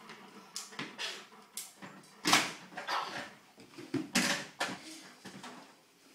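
Plastic toys and toy bins clattering and knocking as toddlers rummage through them, with the two loudest clatters about two and four seconds in, and a few short whimpering sounds from a small child.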